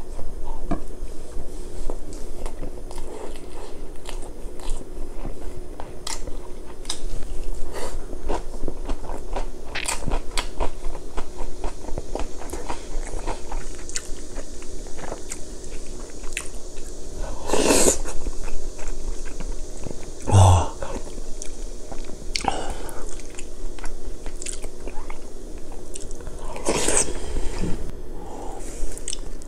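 Close-miked chewing and biting of a mouthful of rice and spicy stir-fried pork (jeyuk bokkeum): wet, crunchy mouth sounds made of many small clicks. A few louder strokes come through, one with a short low knock about two-thirds of the way in.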